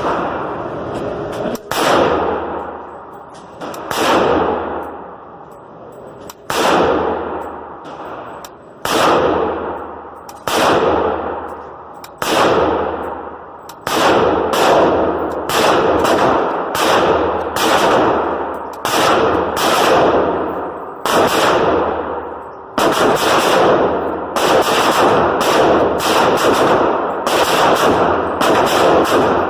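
Semi-automatic rifle shots with echoing tails, about twenty in all: slow at first, then steady at about one shot a second.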